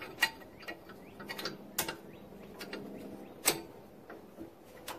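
Steel plow hitch bracket and pin on a Craftsman GT18 garden tractor clicking and clinking as the pin is worked into the bracket's hole. There are a few sharp metal clicks, the loudest about a quarter second in, near two seconds and at three and a half seconds, with lighter taps between.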